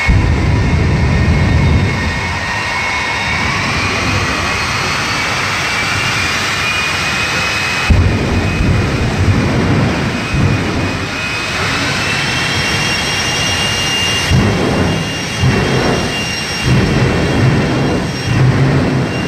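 Rocket-driven bus's engine running in place with a high whine that rises slowly in pitch. About eight seconds in the sound jumps suddenly, and near the end it comes in a run of short surges.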